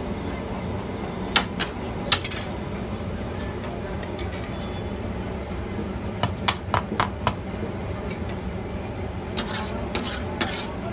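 Metal spatula clanking and scraping on a large flat iron griddle, over a steady background noise. A few sharp clanks come early, then a quick run of about five clanks around six to seven seconds in, and more near the end.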